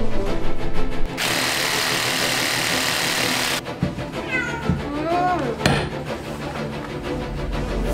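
A kitten trapped inside a built-in wardrobe meows several times in quick succession, about four to six seconds in, crying out at the people outside. Before the meows there is a steady rushing noise lasting about two seconds.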